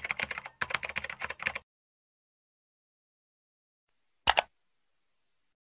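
Rapid computer-keyboard typing clicks for about a second and a half, then a quick double mouse click about four seconds in.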